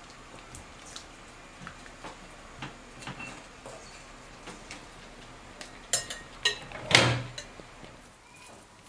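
Metal forks clinking against a steel pot and a glass bowl as a whole boiled chicken is lifted out of the broth. Light scattered clicks, then a few louder clatters about six to seven seconds in, the last one the loudest.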